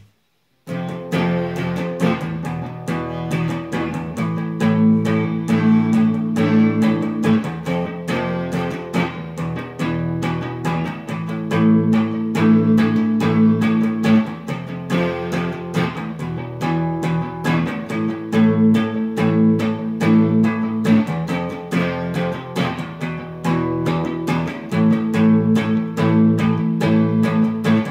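Electric guitar played as an instrumental intro: picked notes over a chord progression that repeats every three to four seconds, starting about a second in.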